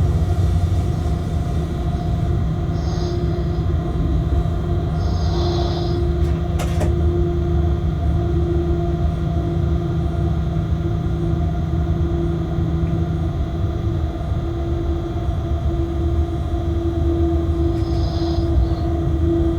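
Freight train running, heard from the locomotive cab: a steady low rumble and hum, with a few brief high-pitched wheel squeals.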